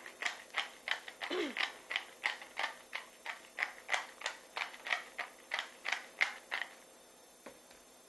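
Hand pepper mill being twisted over the dish, its grinder clicking about three times a second; the grinding stops near the end, and a faint knock follows as the mill is set down.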